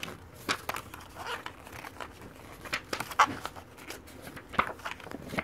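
Paper CD booklet pages being turned and handled, rustling in short irregular strokes with a few sharper ticks.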